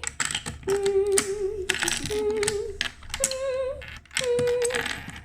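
A girl humming a tune in a few held, wavering notes, with light clicks and taps throughout.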